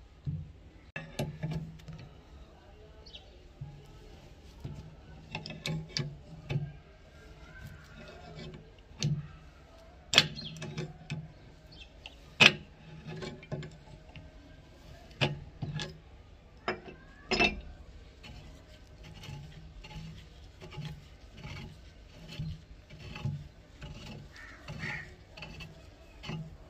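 Rusted barrel of an antique German rifle being unscrewed from its receiver in a vise: irregular metallic clicks, knocks and scraping as the corroded threads turn, with a few sharper knocks in the middle.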